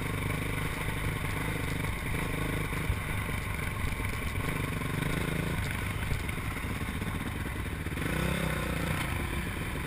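Honda motocross bike's engine running at low speed as the bike is ridden slowly over dirt, with a few light knocks. A brief throttle blip rises and falls in pitch about eight seconds in.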